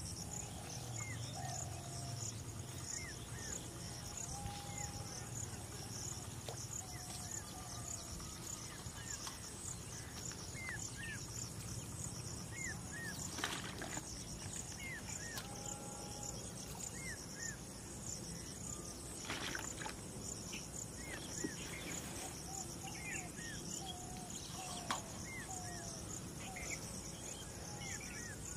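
Insects chirping in a steady, high, pulsing trill, with small birds calling in short repeated chirps throughout. A few sharp clicks sound in the second half.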